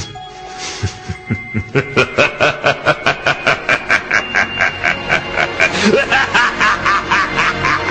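Long, rhythmic laughter of one voice, about five 'ha's a second, starting about a second in, over background music.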